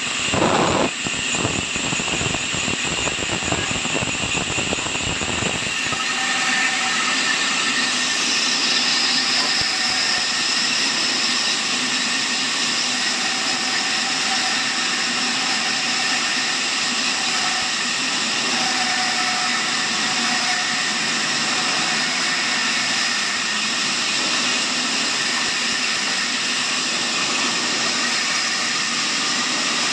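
An industrial band saw cutting wood, dense and rattly for the first few seconds. About six seconds in, a large horizontal log band sawmill takes over, running steadily with a high whine made of several held tones.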